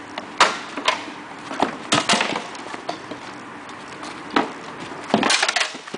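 Training weapons striking shields in a gladiator sparring bout: a spear and a sword hitting a tall scutum and a small round shield. There is a series of sharp knocks, then a quick flurry of hits near the end.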